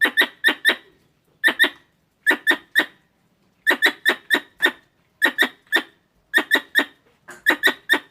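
A squirrel calling: sharp, squeaky chirps in quick runs of two to five, a run about every second.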